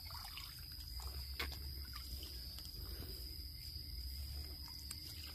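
Quiet forest ambience: a steady high insect drone, with a low rumble and a few faint clicks and knocks.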